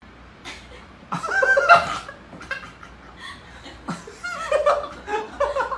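A person laughing in short bouts of breathy chuckles.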